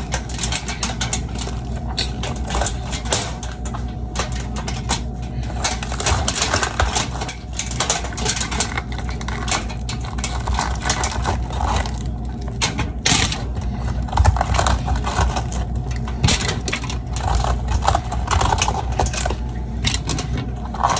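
Kitchen prep handling noise: a dense run of irregular clicks and knocks from food and utensils being handled, over a steady low hum.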